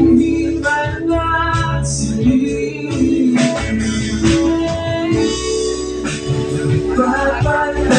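Live band performing a song: guitar, bass and drums with cymbal hits, and a sung vocal line that comes in for stretches.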